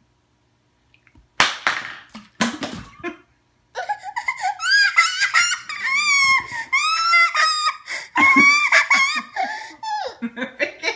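A toddler's loud, high-pitched squealing vocalisations with sliding pitch, coming after a few short breathy bursts about a second and a half in.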